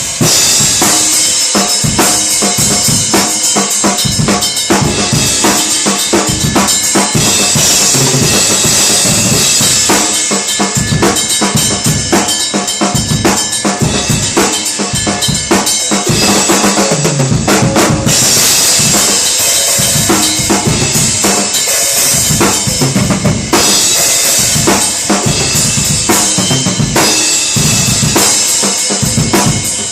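Acoustic drum kit played freestyle: fast, dense patterns on snare and bass drum with cymbal wash, the cymbals dropping out for stretches and coming back.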